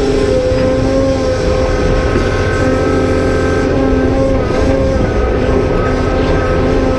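Cat 390F excavator's diesel engine running under heavy load with the hydraulic pump whining. Its steady tones shift slightly in pitch as the hydraulics work.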